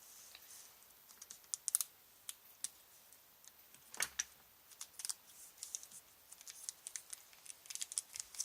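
Irregular light clicks and taps of small plastic and carbon-fibre quadcopter parts being handled, with one sharper click about four seconds in.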